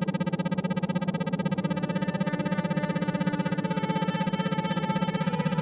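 Electronic healing-meditation track: synthesizer tones with a strong low tone pulsing on and off many times a second, the isochronic-tone pattern, under steady sustained higher tones.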